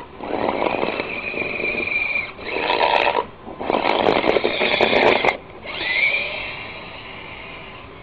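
Remote-control Jeep's motor and gears whining as it drives and pushes snow with its plow blade, in about four bursts with short stops between; the last burst rises in pitch and then fades out.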